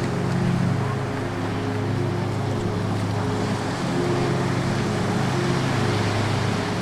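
A car driving steadily: a low, even engine hum over steady road and wind noise.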